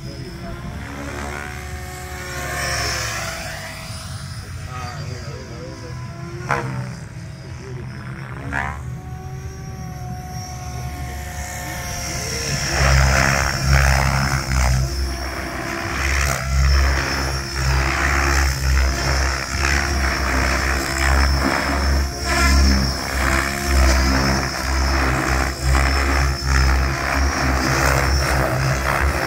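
Tron 7.0 RC helicopter flying aerobatics: rotor and motor noise that rises and falls in pitch as the helicopter manoeuvres. About twelve seconds in it gets louder, with a heavy, rapidly pulsing rotor beat and a steady high whine as it makes fast low passes.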